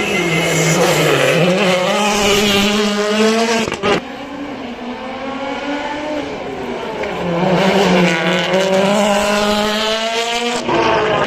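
World Rally Car's turbocharged four-cylinder engine driven hard, its note rising and falling with throttle and gear changes. The sound breaks off abruptly about four seconds in and again near the end.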